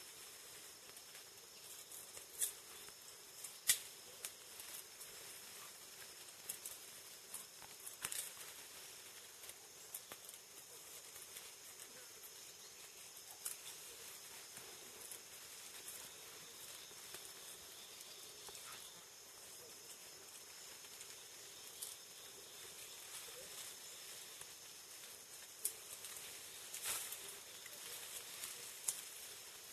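Faint rainforest ambience: a steady high insect hum with scattered sharp snaps and crackles of twigs and leaves, the sharpest about four seconds in and a cluster near the end.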